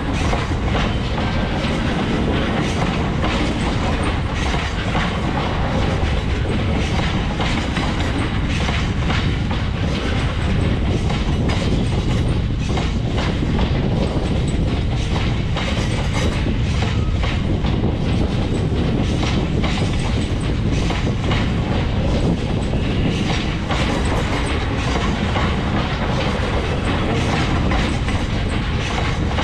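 Freight train of covered bogie hopper wagons rolling past close by, a steady rumble with a rapid, repeated clickety-clack of wheels over the rail joints.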